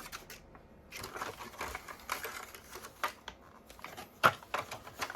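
Scattered light clicks, taps and rustles of hands handling the opened e-bike battery pack, with one sharper click about four seconds in.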